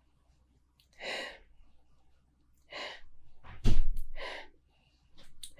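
A man sniffing a glass of beer to take in its aroma: four short, noisy breaths through the nose, the loudest about two-thirds of the way in with a low thump under it.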